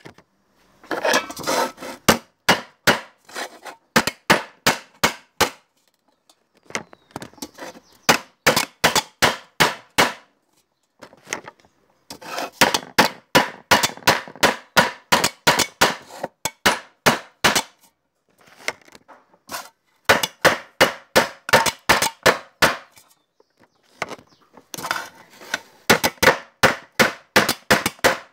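Hammer striking a metal tin can over and over: sharp knocks about two to three a second, in runs of a few seconds broken by short pauses.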